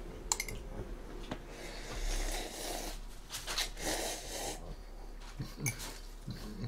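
Rustling and rubbing noises, in two stretches of about a second each near the middle, with a few soft knocks.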